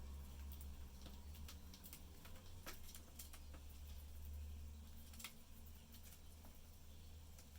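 Faint, scattered clicks from budgerigars pecking and husking seed, irregular and a second or so apart, over a steady low hum.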